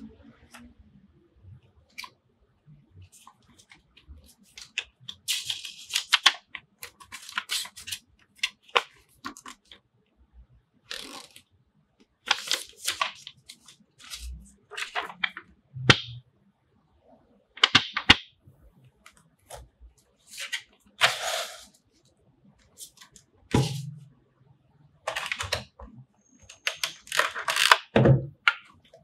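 Paper leaflets and a plastic blister package rustling and crinkling in short, irregular bursts as they are handled and unfolded, with a couple of soft knocks on the table.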